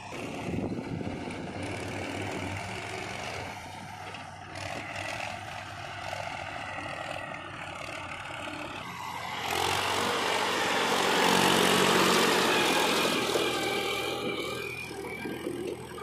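Mahindra diesel tractor engine running as it pulls a trolley loaded with mud. It grows louder from about nine seconds in as it passes close, then fades.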